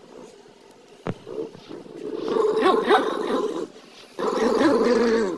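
Dogs growling at each other over a plush toy in a play tug, with higher yips gliding up and down through the growl. It comes in two stretches, the first starting about two seconds in and the second about a second later. A single sharp knock comes about a second in.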